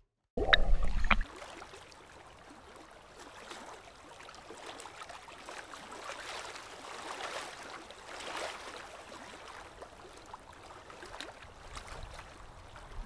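Small waves sloshing and lapping around a camera held at the water's surface, in gentle swells. A short loud bump comes about half a second in.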